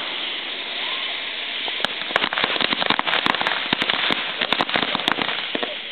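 Consumer firework going off: a steady hiss, then from about two seconds in a rapid, dense string of sharp crackling pops lasting about three seconds, thinning out near the end.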